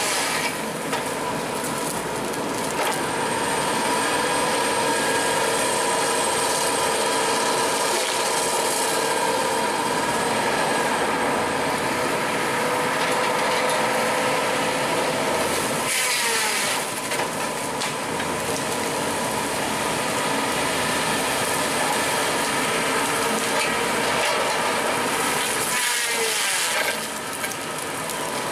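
Engine-driven tree-cutting machinery running steadily while sawing through wood, with two short louder bursts about sixteen and twenty-six seconds in.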